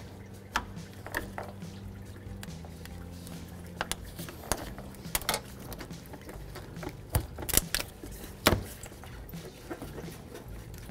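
Scattered light clicks and knocks of hand work on an upper radiator hose and the plastic radiator neck, over a faint steady low hum.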